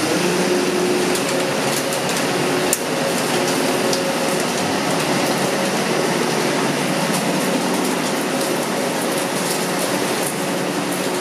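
Steady rain hiss with a machine hum of a few steady tones over it that fade in and out, and a single sharp click about three seconds in.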